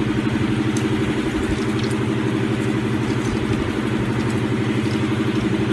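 Steady mechanical drone of an engine or motor running at an even speed, with a fast, even pulse.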